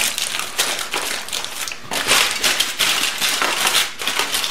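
Aluminum foil crinkling and crackling irregularly as it is folded over and pressed flat into tight seams by hand.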